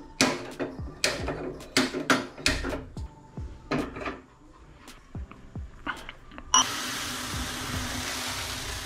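Metal clicks and knocks of a hand-held stove lighter and a small milk pan on a gas stove. About two-thirds of the way in, a sharp click is followed by a steady hiss of the lit gas burner that starts suddenly and keeps on.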